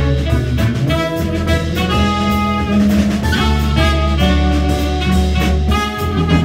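A small jazz combo playing live: trumpet and saxophone on held melody notes over plucked upright bass, drum kit and vibraphone.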